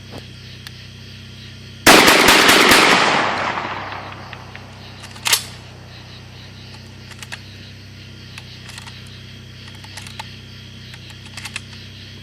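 A loud gunshot about two seconds in, its report echoing and fading over about two seconds, then a second, quieter sharp bang a few seconds later, followed by scattered faint clicks.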